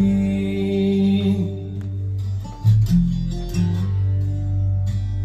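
A song played back through Unitra Tonsil Space 86 loudspeakers: a male voice holds the last word of a line, then strummed acoustic guitar over a steady bass line carries on without singing.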